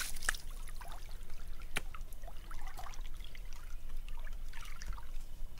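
Water splashing and trickling as a raw pig's head is rinsed by hand in shallow stream water, with scattered splashes, drips and a few sharp clicks.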